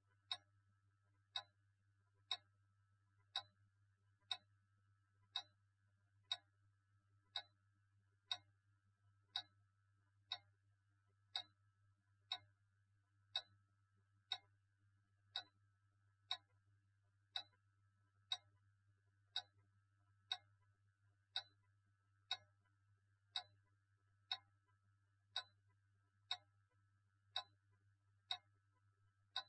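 A clock ticking steadily, one short sharp tick about every second, over a faint low hum.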